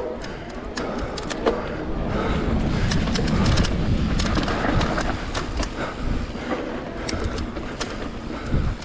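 Mountain bike ridden fast down a dirt trail: a steady rumble of tyres and air rushing past, building through the middle, with frequent sharp clacks and rattles from the bike over bumps.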